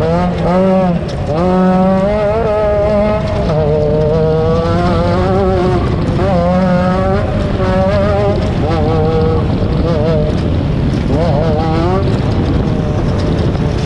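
Off-road race vehicle's engine running hard, its pitch climbing and dropping again and again as it accelerates and backs off, over a constant loud rush of noise.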